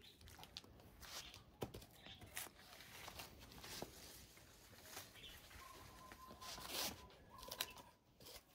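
Faint rustling and scattered clicks of someone moving about and handling things, close to silence.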